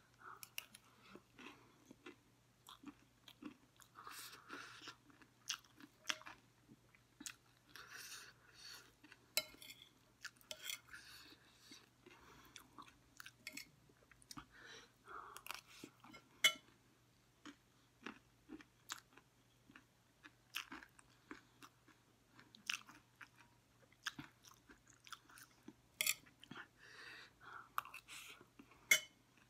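A person chewing mouthfuls of chatpate, a crunchy spiced puffed-rice snack, close to the microphone: irregular crunching with many small sharp clicks of the mouth.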